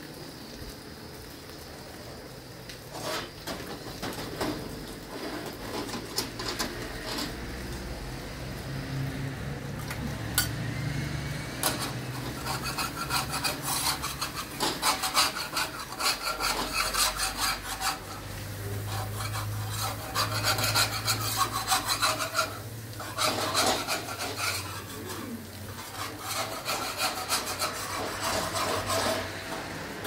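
Irregular scraping and rubbing strokes, starting about three seconds in and continuing unevenly.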